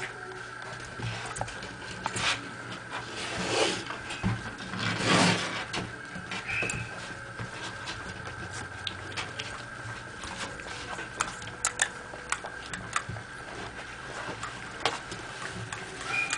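Shiba Inu puppies scampering and tussling on an artificial-turf mat: a patter of small clicks and scuffs from their paws, with a couple of louder rustles about four and five seconds in.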